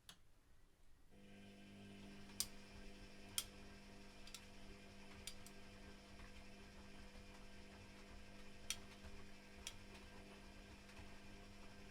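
Privileg Classic 30612 washing machine's drum motor starting up about a second in and turning the drum with a steady hum during the boil wash, with sharp ticks now and then.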